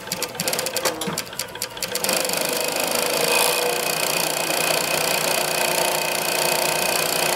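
Juki MS-1190 industrial tape sewing machine stitching tape onto fabric. It runs in a few short stop-start bursts at first, then from about two seconds in runs steadily at speed.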